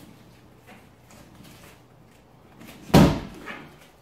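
A bare-foot kick smacking into a held inflatable exercise ball: one loud, sudden hit about three seconds in, with a short ring after it.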